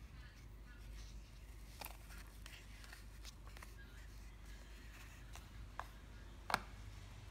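A Zippo lighter and its cardboard display box being handled: a scatter of small clicks and taps, the loudest near the end as the lighter is lifted out of the box.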